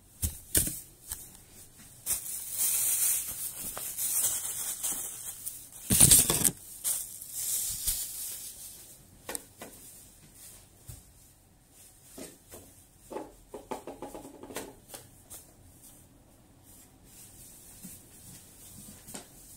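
Cleaning noises: a rough rubbing and wiping hiss for a few seconds, one louder sudden burst about six seconds in, then scattered small knocks and clicks of things being handled, growing quieter.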